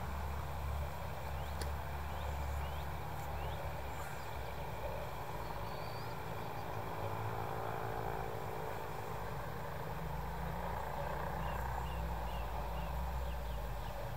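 Faint drone of a distant RC model airplane's motor flying high overhead, its pitch wavering slightly and most audible in the middle. A steady low rumble runs underneath.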